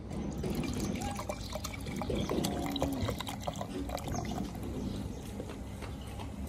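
Coke poured from a large plastic bottle into a stainless-steel jug, gurgling from the bottle neck, with the crackle of the fizz as the cola foams up in the jug.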